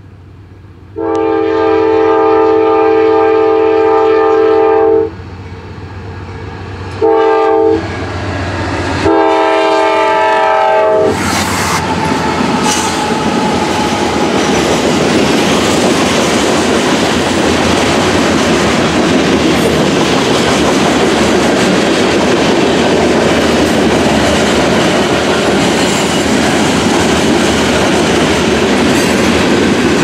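Norfolk Southern freight locomotive's air horn, several notes at once, blowing for a grade crossing: a long blast, a short one and another long one. The train then passes close by, with a steady loud rumble of the locomotives and freight cars rolling over the crossing, wheels clacking on the rails.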